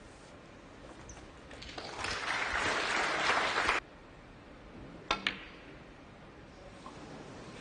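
Audience applause that cuts off abruptly. A little over a second later come two sharp clicks of snooker balls in quick succession: the cue tip striking the cue ball, then the cue ball hitting an object ball.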